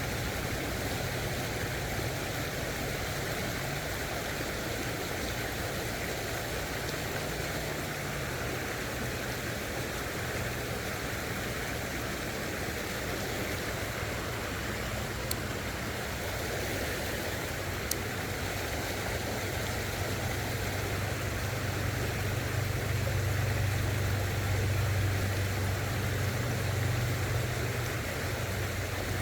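Creek water running steadily over rocks, with a low rumble underneath that swells about two-thirds of the way through. Two faint clicks in the middle.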